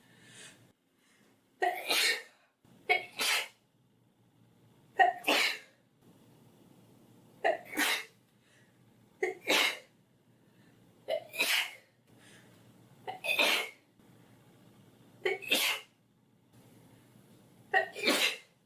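A girl sneezing over and over in a pepper-induced sneezing fit. There are about nine sneezes, roughly two seconds apart, each a short lead-in followed by a sharp, loud burst.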